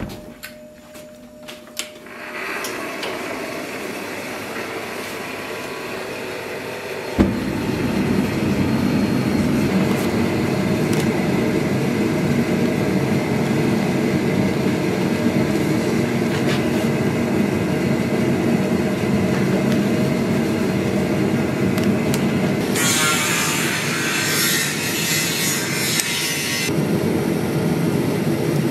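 Forced-air forge burner running with a steady roar, stepping up much louder about seven seconds in, after a few sharp knocks at the start. A high hiss joins for a few seconds near the end.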